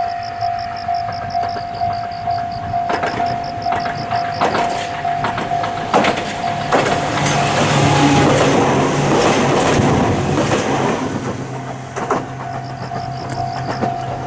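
Ohmi Railway electric train passing close by, its wheels knocking over the rail joints and the noise swelling to a peak with a low motor hum, then fading as it moves away. Under it a steady ringing tone pulses about twice a second, drowned out while the train is loudest and heard again after it has passed.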